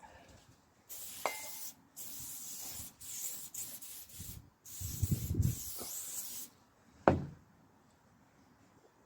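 Aerosol can of silicone shine spraying in several short hisses over about five seconds, then a single knock.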